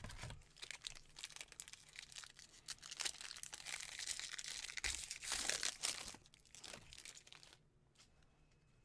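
Foil wrapper of a baseball card pack crinkling as it is torn open and pulled off the cards, a dense rustle that stops about seven and a half seconds in.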